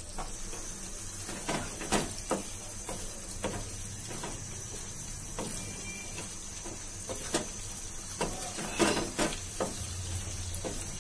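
Wooden spatula stirring beef curry in a metal pot, with irregular knocks and scrapes against the pot over a steady sizzle from the curry, a cup of water just added.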